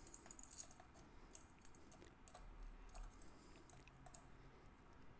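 Faint, scattered light clicks and ticks of a steel cam timing chain and its sprocket being handled as the chain is worked over the sprocket teeth.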